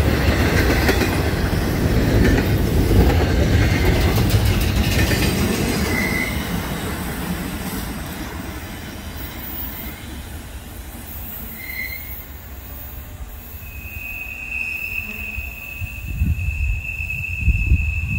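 Intermodal train's double-stack well cars rolling away on jointed rail, the steel-wheel rumble loud at first and fading over several seconds as the train recedes. Short high wheel squeals come through, then a steady high squeal in the second half. Low thumps are heard near the end.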